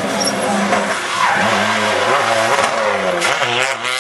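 Rally car passing close at speed, its engine revving hard with the pitch dipping and climbing again several times as the driver comes on and off the throttle. Tyre and gravel noise from the car sliding on the loose surface.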